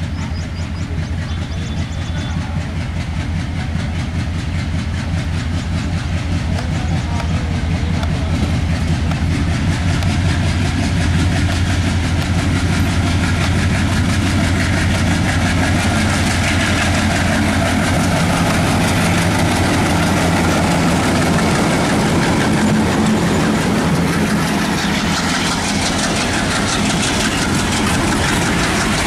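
Diesel locomotive hauling a heavily loaded freight train: a steady low engine throb that grows louder as it approaches, then the rumble and clatter of the loaded wagons rolling past close by.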